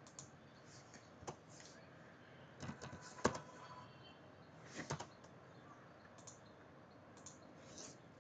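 Scattered computer mouse clicks and keystrokes during CAD drafting. There is one click about a second in, a cluster of louder clicks around three seconds in, and another pair around five seconds.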